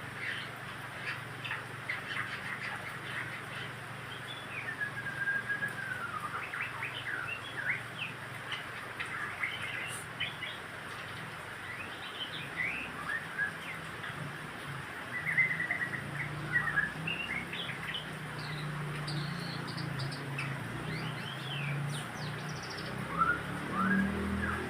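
White-rumped shama (murai batu) singing a varied song of whistled glides, trills and quick chirps, with a low steady hum underneath.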